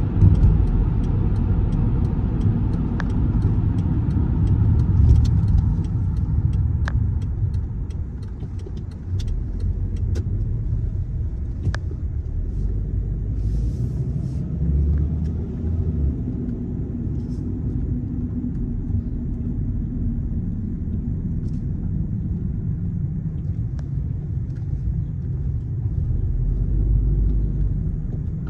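Car driving at city speed: a steady low rumble of road and engine noise, with a few faint clicks.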